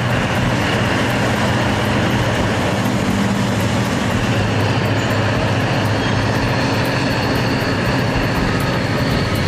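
Diesel engine of a dragline excavator running steadily, a deep, even drone.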